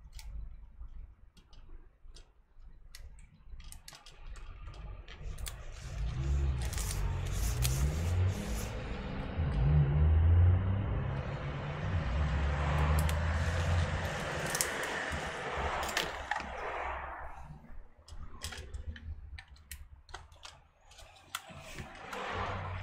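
Hands working on a laptop at the bench: scattered clicks and knocks of small parts, with a long scratchy rasp through the middle as tape is pulled off and pressed down to hold the drive in place.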